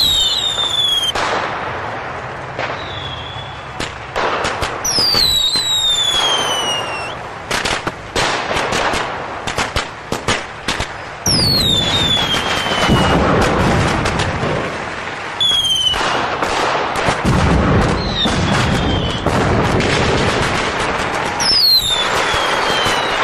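Fireworks: repeated whistles falling steeply in pitch, over dense crackling and bangs. Heavy low booms join in from about halfway through.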